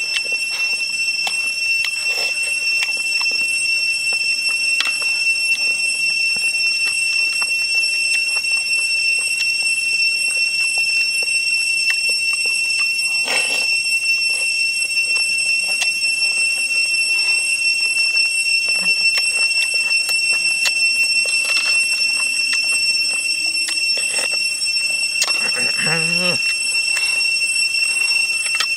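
Spoon and chopsticks clicking against a metal bowl and soup being slurped, over a steady high-pitched drone that never lets up. A short wavering hum comes near the end.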